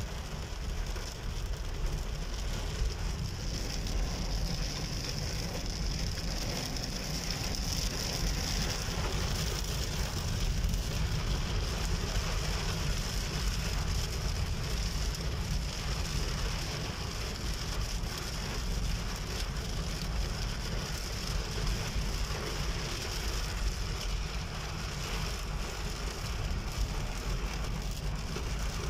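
Heavy rain falling on a car's roof and windshield, heard from inside the moving car, as a steady hiss over a low rumble of road and engine.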